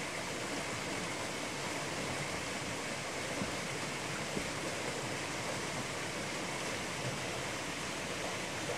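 Forest stream rushing steadily over rocks and small cascades.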